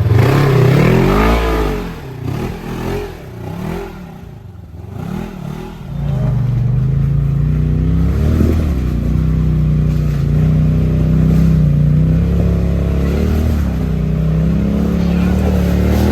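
Side-by-side UTV engine revving up and falling back, then a few short throttle blips, then running steadily at low revs with occasional small revs as it picks its way over the rocks.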